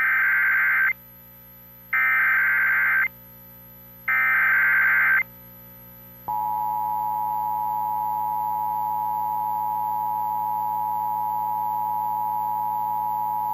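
Emergency Alert System SAME header: three bursts of warbling digital data, each about a second long. About six seconds in, the steady two-tone EAS attention signal starts and holds, heralding a tornado warning.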